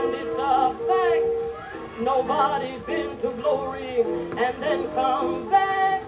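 A 1922 OKeh 78 rpm shellac record playing an early popular song recording, with wavering melody lines over a band. There is no treble above about 4 kHz.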